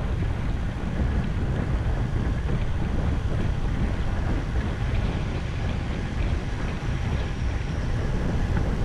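Wind buffeting the microphone of a camera on a moving bicycle: a steady low rumble with a hiss above it.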